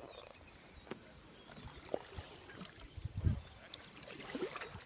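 Water trickling and lapping around a kayak on a river, with scattered clicks and a few low thumps from the handheld phone; the loudest thump comes a little past the middle.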